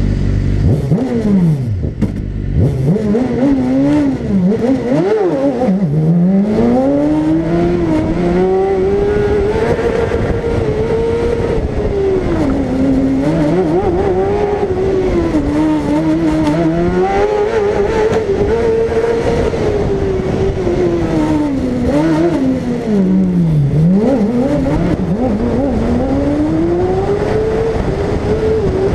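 BMW S1000RR superbike inline-four engine in a Fiat 500 4x4 race car, revving hard under full acceleration and falling off on braking, its pitch rising and falling again and again. There are several quick swings in the first few seconds and a deep drop and climb about three quarters of the way through.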